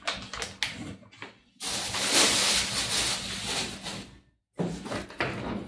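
Rustling and scraping of packaging as goods are handled in an open cardboard shipping box: a few light clicks, then a steady rustle of about two and a half seconds, then more brief handling noise near the end.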